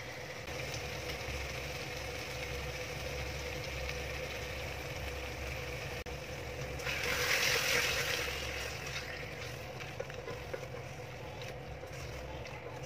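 A pot of chicken masala cooking on a gas stove, with a steady low hum. About seven seconds in a louder hiss swells and fades over a second and a half, and a few light clinks follow near the end.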